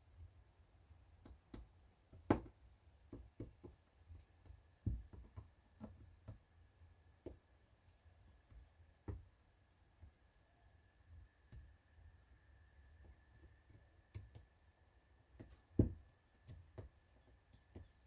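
Irregular light clicks and taps of a Ford F350 fuse box's plastic parts being handled and clipped together during reassembly, with four louder knocks spread through. A faint steady high tone runs underneath from a few seconds in.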